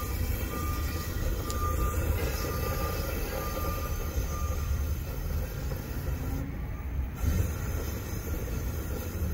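Vevor portable propane forge burning steadily on one of its two burners, a continuous low rushing rumble from the burner.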